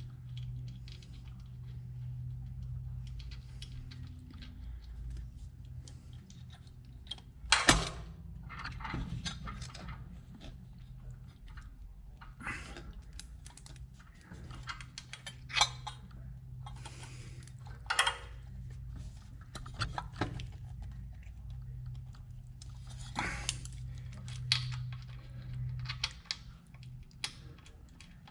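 Scattered small metallic clicks and clinks of hand work connecting wiring on an engine, with one sharper knock about seven seconds in, over a steady low hum.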